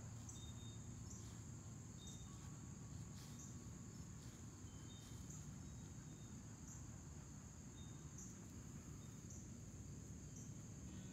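Faint, steady high-pitched insect trilling, with slight breaks about once a second, over low outdoor background noise.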